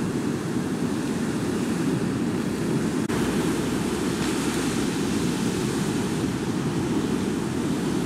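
Ocean surf breaking and washing onto the beach: a steady, even rush, heaviest in the low end, with some wind on the microphone.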